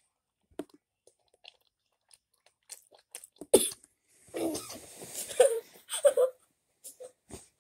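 A boy coughing while eating: one sharp cough about three and a half seconds in, then a run of rough coughs. Small chewing clicks come before the coughing.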